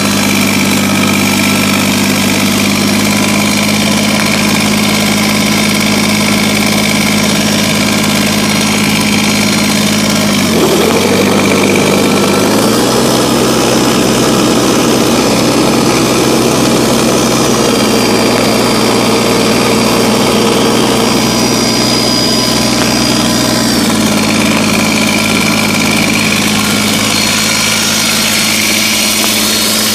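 Kubota BX2380 tractor's three-cylinder diesel engine running steadily at idle; about 11 seconds in it briefly dips and then speeds up, holds the higher speed, and drops back to idle about 24 seconds in.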